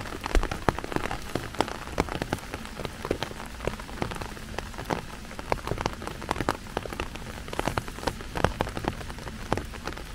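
Steady rain, with many irregular, sharp raindrop taps close by over a constant hiss.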